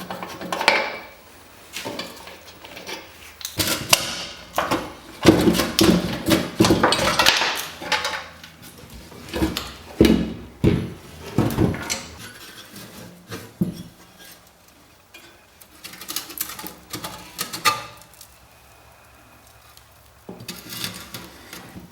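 Metal parts of an old slide projector clinking, knocking and scraping as it is handled, in irregular bursts that are busiest in the middle stretch.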